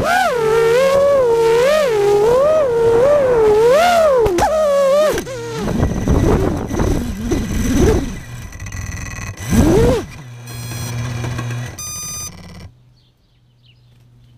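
A small radio-controlled model's electric motors whining, the pitch wavering rapidly up and down with the throttle for about five seconds. This gives way to a stretch of rough noise, a brief rising whine near ten seconds, and a low hum that cuts off suddenly, leaving it much quieter.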